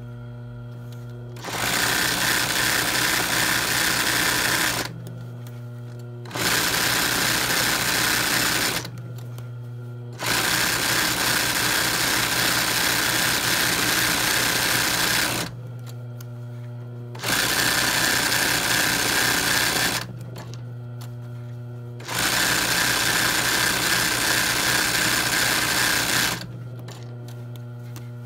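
ROYAL industrial sewing machine stitching free-motion embroidery through hooped cotton, running in five bursts of a few seconds each. A steady low hum carries on in the pauses between bursts.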